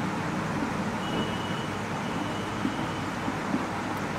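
Steady background hiss and hum in the room. Through the middle there is a faint thin high squeak as a marker writes on a whiteboard.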